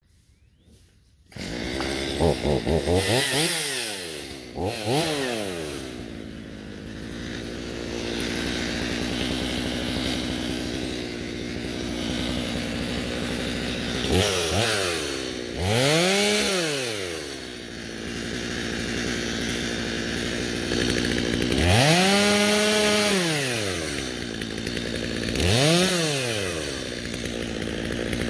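Stihl MS250 two-stroke chainsaw running, revved up to full throttle and back down several times while cutting brush, and idling between revs. The sound starts about a second in.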